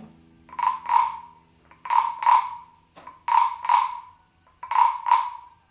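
Wooden frog rasp scraped with its stick, giving four pairs of croaks that imitate a frog.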